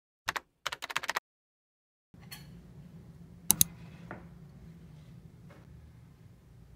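A quick run of keyboard typing clicks lasting about a second, over dead silence. Then faint room tone with a sharp double clack of dishware on a tabletop about three and a half seconds in, and a few lighter taps after it.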